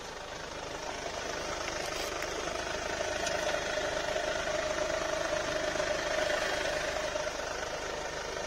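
Mercedes car running with its front wheels turned to full steering lock: a steady mechanical drone that slowly grows louder, then eases off near the end. The front wheel is loose on its bolts, a noise first taken for a worn wheel bearing.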